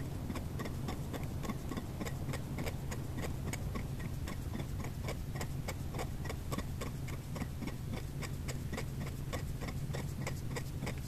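Steady, even ticking, about four ticks a second, over a low steady hum.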